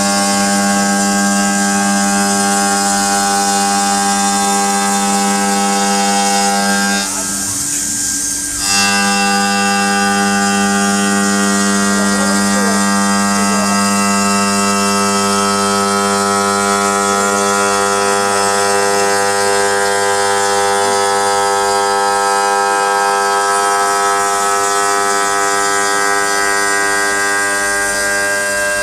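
CNC stone cutting and polishing machine running with a steady, loud whine of several held tones, broken briefly about seven seconds in by a short rush of noise before the whine resumes.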